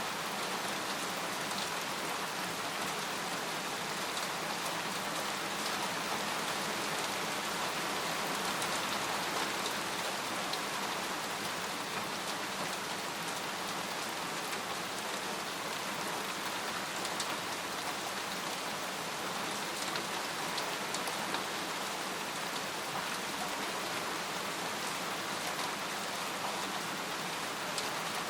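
Steady rain falling on a camping tent, an even hiss with scattered single drop ticks.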